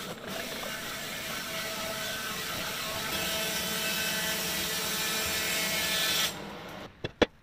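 Woodland Mills HM126 portable bandsaw mill running steadily as its blade cuts lengthwise through a log. The sound falls away about six seconds in, followed by a few light clicks near the end.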